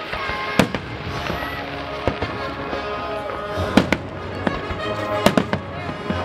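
Aerial fireworks shells bursting: about five sharp bangs one to two seconds apart, the loudest nearly four seconds in, over a steady background din.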